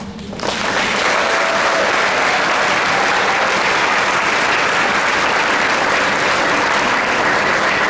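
Audience applauding; the clapping breaks out about half a second in and holds steady.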